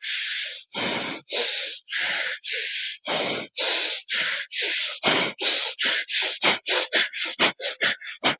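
Bhastrika pranayama: a person breathes rapidly and forcefully through one nostril at a time, alternating sides, each inhale and exhale a short rush of air through the nose. The strokes are even and quicken from about two a second to about four a second by the end.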